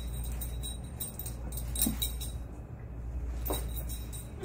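A standard poodle and a poodle puppy playing on a carpeted floor: light jingling and a few soft thumps, over a steady low hum.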